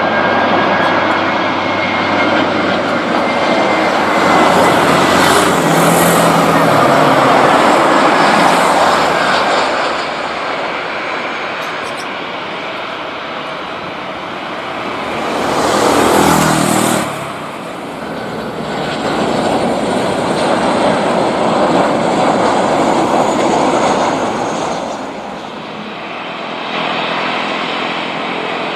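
CFM56 engines of an Airbus A320 landing, a loud steady jet rush with a high whine that slowly falls in pitch as the airliner passes, easing off after about ten seconds. About halfway through there is a brief louder swell as something passes close. Jet noise then rises and falls again from the runway.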